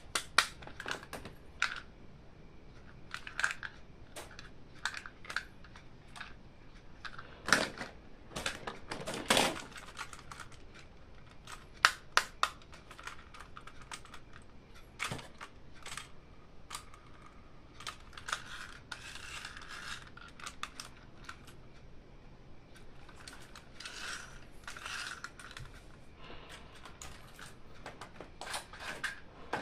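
Plastic toy packaging and toys being handled during unboxing: scattered sharp clicks and taps with short crinkling rustles, a few louder ones in the middle.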